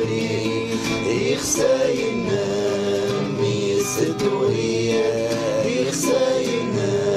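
Background music: a wavering melody line over a steady accompaniment, with a bright accent recurring about every two seconds.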